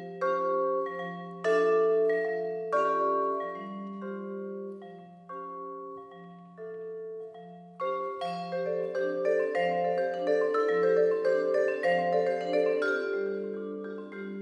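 Solo vibraphone played with mallets: struck chords that ring on over a low bass line. The playing thins out to a few slower notes in the middle, then turns busier and denser from about eight seconds in.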